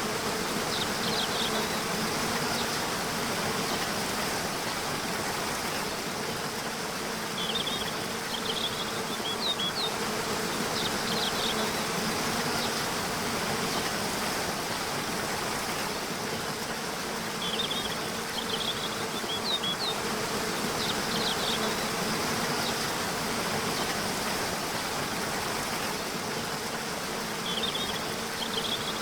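Waterfall with a steady rush of falling water, under a low steady buzz. A bird's short chirping phrases come in about every ten seconds, three times.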